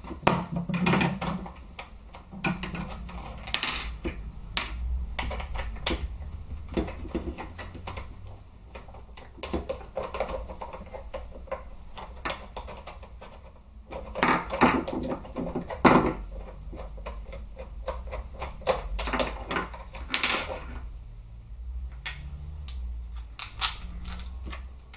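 Screws being taken out of an airsoft rifle's plastic buttstock with a screwdriver: irregular clicks and knocks of the tool, the screws and the plastic parts being handled, over a low handling rumble.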